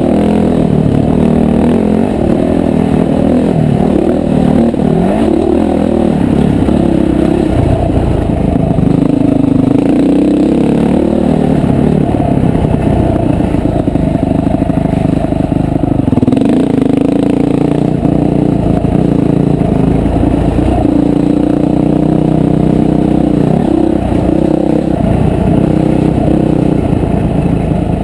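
Honda CRF450R dirt bike's single-cylinder four-stroke engine running under load on a trail ride, its revs rising and falling over and over with the throttle.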